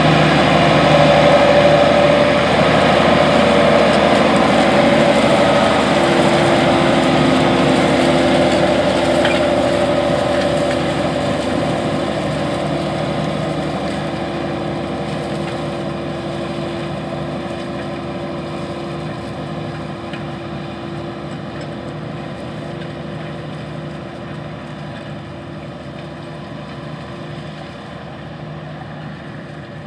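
New Holland T9.450 four-wheel-drive tractor's diesel engine running steadily as it pulls an anhydrous ammonia side-dressing toolbar across a field, fading gradually as the tractor moves away.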